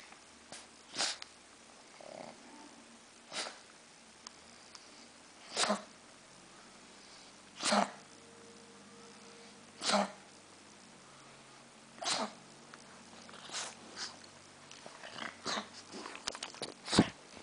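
Pug coughing: short, dry coughs repeating about every two seconds. Near the end come a run of quicker small clicks and one sharp knock.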